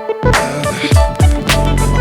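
Background music: an electronic track with a heavy beat and deep bass-drum hits.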